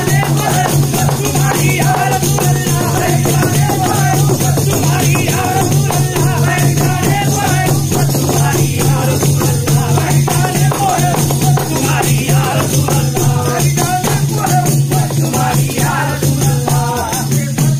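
Devotional Urdu naat singing, with sustained wavering vocal lines over a fast, even rattling percussion rhythm and a steady low hum underneath.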